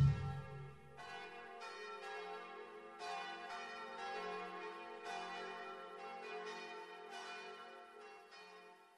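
The end of a song: the ring of a final drum hit dies away, then soft bell-like chime notes are struck every half second to second and ring on, fading out near the end.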